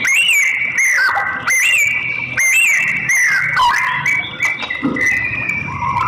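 White-rumped shama singing: a phrase of whistled notes that rise and then fall, repeated three times about a second apart over a held high note, then a run of steadier whistles near the end.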